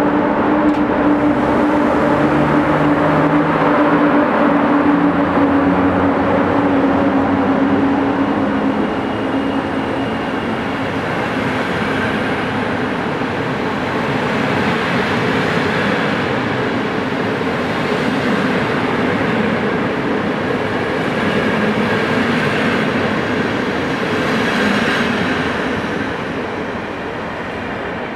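EU07 electric locomotive passing with a steady hum, followed by its passenger coaches rolling by with continuous wheel-on-rail noise. The noise fades near the end as the last coach goes by.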